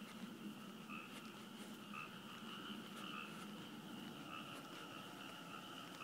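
Steady chorus of many frogs calling at once.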